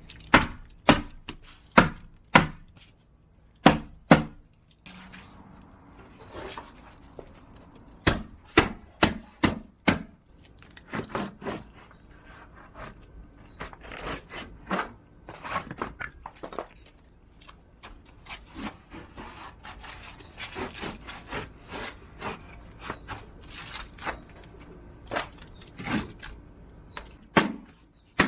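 Hammer strikes on wooden boards, in runs of sharp knocks about half a second apart with short pauses between runs, as boards are nailed up.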